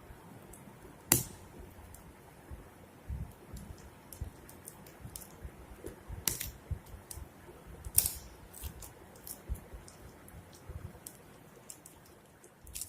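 Hands handling a smartphone and its retail box and packaging: scattered small clicks, taps and rustles, with sharper knocks about a second in, around six and eight seconds in, and near the end.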